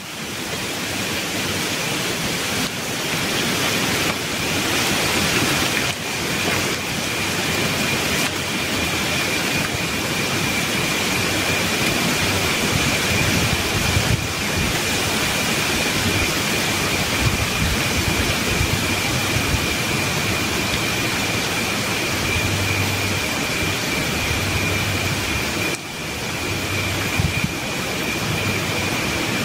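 Wind rushing steadily through rainforest canopy leaves, fading in over the first few seconds, with a thin steady high whine above it.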